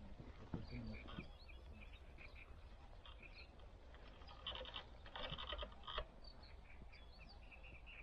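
Faint chirping of small birds, many short calls, with two harsher, buzzier phrases around the middle; a low wind rumble runs underneath.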